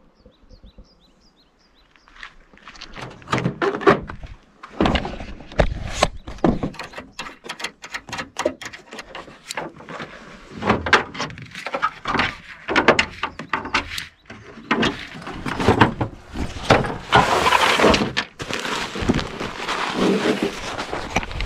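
A tent being pitched: bursts of rustling fabric with many knocks and thunks, and a long stretch of heavy rustling about three quarters of the way through.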